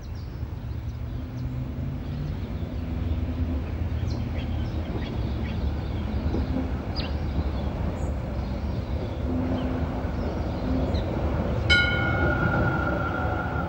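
Electric tram running along its track: a steady low rumble with motor tones that step up and down in pitch. A steady high squeal starts about two seconds before the end.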